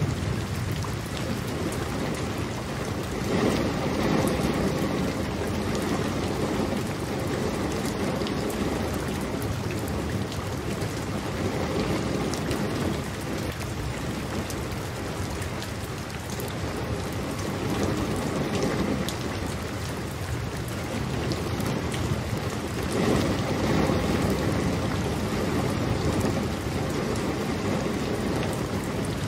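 Steady, heavy rain: a dense, even patter that swells louder every several seconds and then eases back.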